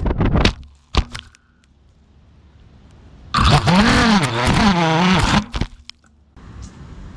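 FPV quadcopter crashing, recorded on its own onboard GoPro: a few sharp cracks and knocks with one hard hit about a second in, then the motors stop. About three seconds in, the motors spin back up with a whine that swoops up and down in pitch for about two seconds. A steady rushing noise follows near the end.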